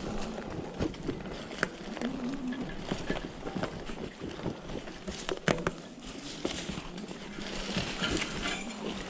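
An ebike and its loaded trailer being moved through forest undergrowth: scattered cracks, knocks and rattles over a rustling background, with one sharper knock about halfway through.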